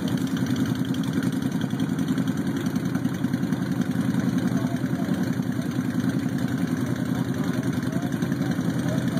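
Honda Shadow Phantom 750's V-twin idling steadily through an aftermarket Vance & Hines exhaust, with an even, rapid pulse and no revving.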